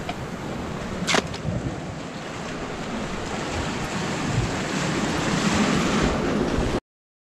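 Sea surf washing against the rocks below, mixed with wind buffeting the microphone, growing slightly louder; a single sharp knock about a second in. The sound cuts off suddenly near the end.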